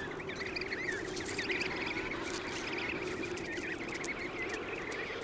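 Emperor penguin chicks in a huddle, many giving short, wavering high-pitched whistles that overlap continuously over a steady lower background of colony calls.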